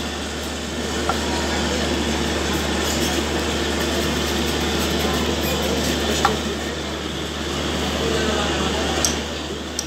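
Busy street ambience with people talking in the background over a steady low hum, with a few short sharp clicks about a second, six seconds and nine seconds in.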